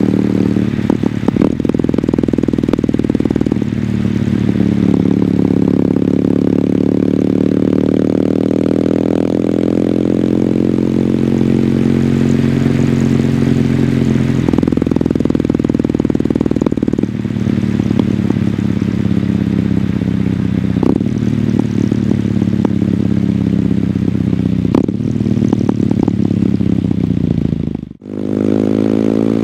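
Kawasaki W800's air-cooled parallel-twin engine running through its stock exhaust under way, the engine note rising and falling several times with throttle and gear changes. The sound dips briefly near the end.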